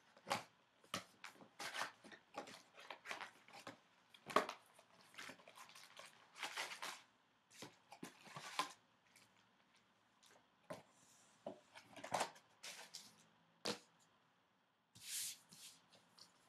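A sealed trading-card hobby box being torn open by hand, then its foil card packs rustled, crinkled and tapped down one after another into a stack. Faint, irregular crinkles and taps, with a short pause near the end before one last rustle.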